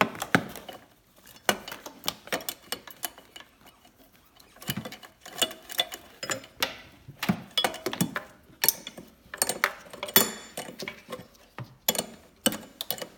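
Hand ratchet wrench clicking in irregular spells of quick clicks as a fastener is turned down until tight.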